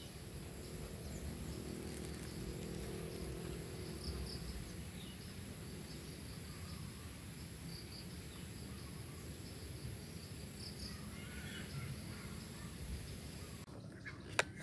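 Quiet forest ambience: a faint steady high-pitched insect hum with scattered faint chirps. A single sharp click comes near the end.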